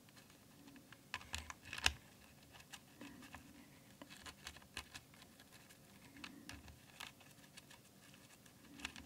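Faint, irregular clicking of a blue mechanical keyboard switch pressed over and over to work freshly applied hand cream into it, the loudest clicks about two seconds in.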